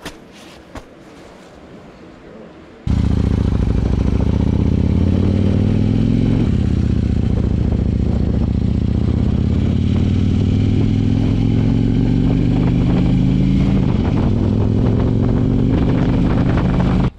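Harley-Davidson Road King's V-twin engine running loud and steady under way, heard from the rider's seat, its pitch shifting a couple of times with speed. It starts abruptly about three seconds in, after quieter shop noise with a few clicks.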